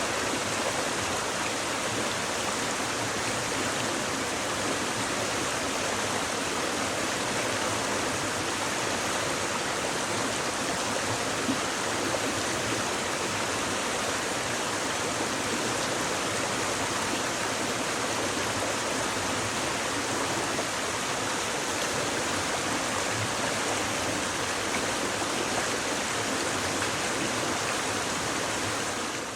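A shallow stream babbling steadily over stones, an even rush of running water with no pauses, fading out at the very end.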